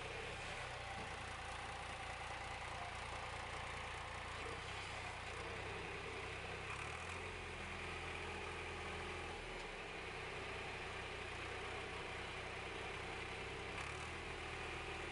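John Deere 310B backhoe's 3.6-litre four-cylinder diesel engine idling steadily, heard faintly.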